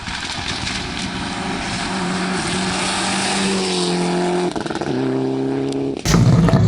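Rally car, a Mitsubishi Lancer Evo 9, approaching at full throttle with its engine note climbing and getting louder. It shifts gear about four and a half seconds in, then comes through close and much louder near the end.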